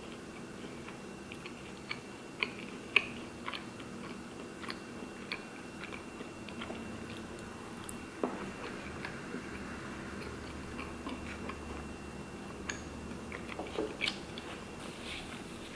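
Close-miked chewing and mouth sounds of someone eating, with scattered small clicks and soft crunches, the sharpest about three seconds in.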